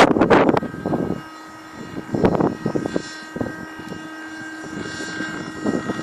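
Thunder Tiger Raptor 30 nitro RC helicopter in flight, its two-stroke glow engine and rotor holding a steady whine. Gusts of wind buffet the microphone over it, hardest in the first second and again a little after two seconds.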